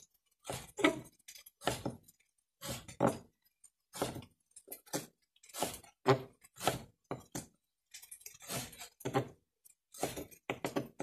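Kitchen knife chopping through a raw chicken fillet and knocking on a wooden chopping board, in irregular strokes about two a second.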